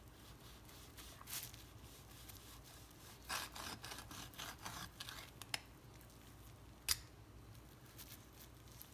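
Long kitchen knife sawing through a baked beef mince doner kebab loaf, held with a carving fork on a plastic-wrapped wooden cutting board: a run of short rasping strokes in the middle, then one sharp click about seven seconds in.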